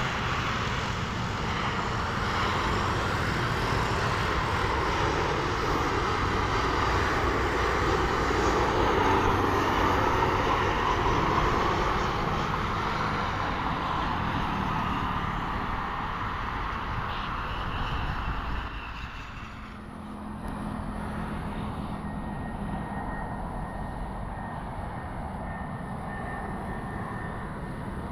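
Airliner engines running loud as an aircraft passes close by, easing off after the middle. A sharp drop follows about two-thirds of the way in, then a quieter steady engine rumble with a thin high whine.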